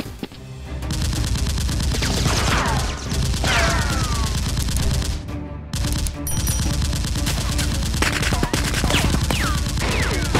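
Rapid automatic gunfire sound effects, long volleys of shots with a short break about five and a half seconds in, and a few falling whistles among them.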